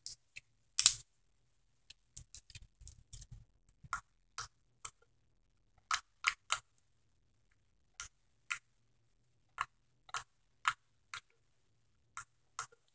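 Orange slime being squeezed and stretched by hand, giving irregular sharp clicks and pops, the loudest about a second in, with a few soft low bumps of handling a little after two seconds.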